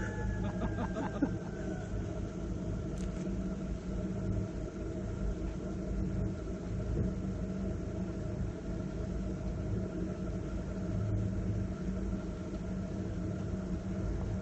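Steady low mechanical rumble with a constant hum, like an engine running at idle.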